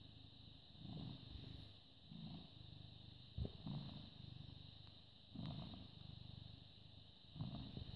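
British Shorthair cat purring close up, the purr swelling and fading with each breath, about every second and a half to two seconds. A brief click about three and a half seconds in.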